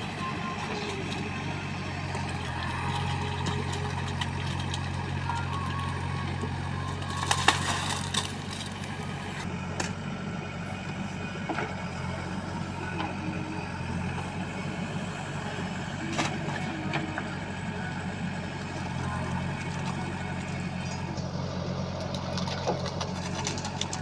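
Heavy diesel machinery engine running steadily at low revs, with occasional sharp knocks. The loudest is a cluster about seven and a half seconds in.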